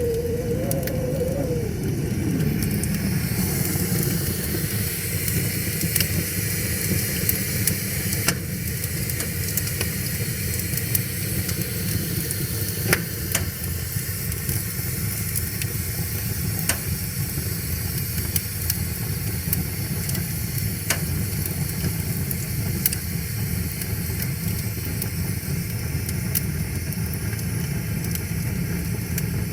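Wood fire crackling, with scattered sharp pops, over a steady low rush of river water. A wavering hum slides down and fades out about two seconds in.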